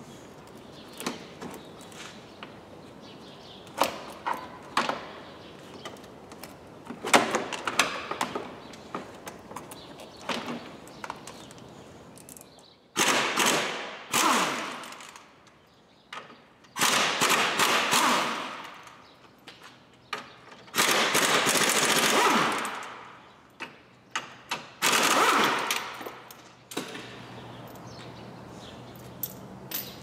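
Plastic shroud of a car's electric condenser fan scraping and knocking against the condenser and radiator as it is worked into place by hand: scattered clicks and knocks, then four long, loud scrapes with sharp clacks between them. A steady low hum starts near the end.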